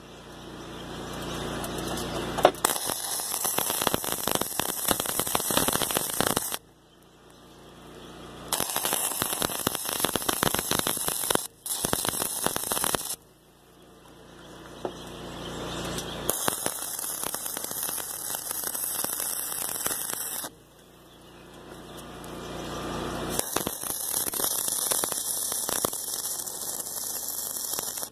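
Stick-welding arc crackling and sizzling in four separate runs of about four seconds each, with short pauses between them as steel pipe sections are welded onto C-clamp frames. A low hum fills the pauses.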